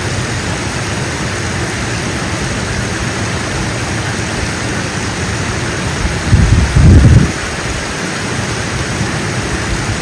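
Steady rushing of falling water churning into the pool, with a brief louder low rumble about six and a half seconds in.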